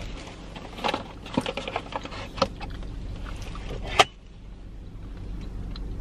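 Cardboard donut box being handled and opened: scattered rustles and light clicks, then one sharp snap about four seconds in, over a low steady hum.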